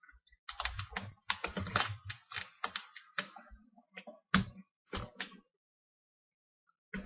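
Irregular clicks and taps of a precision screwdriver working a stubborn hinge screw on a laptop's plastic and metal frame. They run from about half a second in and stop about five and a half seconds in.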